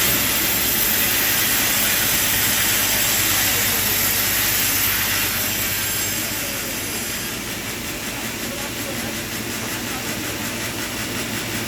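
Sawmill saw running through timber: a steady, loud hiss over a low machine hum, easing somewhat about seven seconds in.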